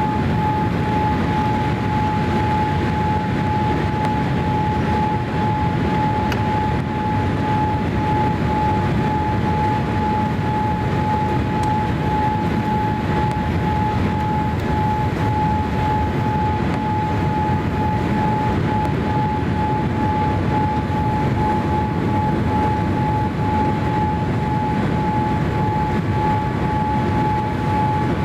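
Steady in-flight cabin noise of a Boeing 787-8 Dreamliner with Rolls-Royce Trent 1000 engines: a constant rush of engine and airflow noise with one steady high-pitched whine running through it.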